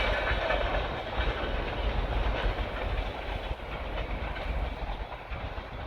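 Freight train cars rolling past, wheels clacking over the rail joints with a low rumble, gradually fading away.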